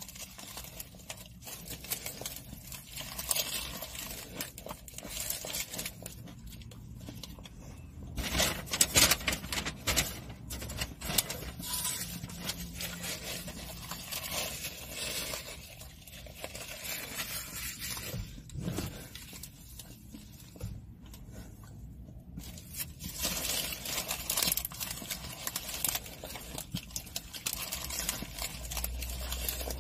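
Fast food being eaten close to the microphone: wrapper paper rustling and tearing, with scrapes and small clicks, busiest about a third of the way in.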